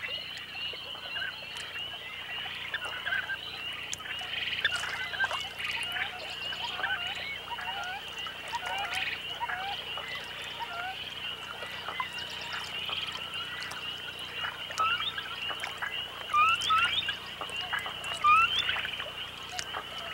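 Red-necked grebe chicks peeping: many short calls that rise and fall in pitch, turning into louder, steeper upward chirps near the end, over a steady high hiss.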